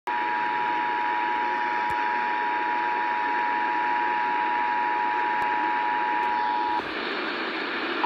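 Emergency Alert System attention signal, the steady two-tone alarm, playing from a RadioShack radio over constant radio static hiss. The tones cut off about seven seconds in, leaving only the hiss, and start again right at the end.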